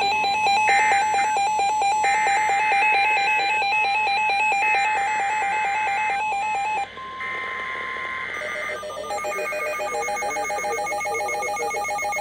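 Emergency Alert System electronic signalling between two alerts: repeated buzzy data bursts about a second and a half long over a steady pulsing tone. About seven seconds in, these change to a different set of steady beeping alert tones.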